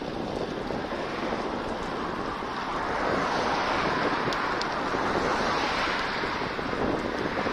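Wind rushing over the microphone of a bicycle rider moving at about 31 km/h, a steady noisy roar that swells from about three seconds in as oncoming cars pass close by.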